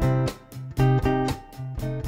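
Instrumental guitar music: plucked notes over a repeating low bass note.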